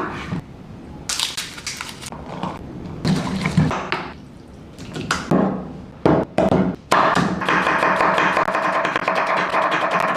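Music with irregular knocks and taps over it; from about seven seconds in, a denser, steady sound takes over.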